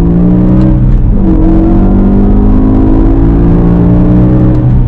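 BMW M5 E60's 5.0-litre V10 heard from inside the cabin, accelerating hard: its pitch climbs, drops sharply about a second in as it shifts up, climbs steadily again and falls away near the end.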